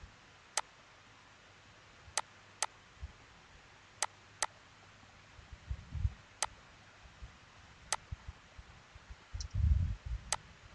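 Scattered sharp clicks of a computer mouse, about eight in ten seconds, some in quick pairs, with a couple of dull low thumps around the middle and near the end.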